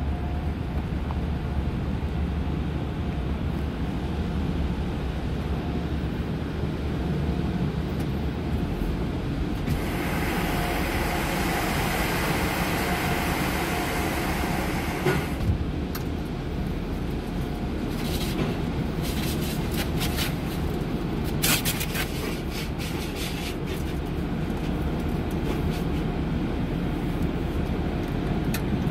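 Low steady rumble of a car heard from inside its cabin as it moves into an automatic car wash. About a third of the way in there is a stretch of hiss lasting about five seconds. Past the middle comes a run of sharp spatters and knocks as the wash starts to spray water onto the car.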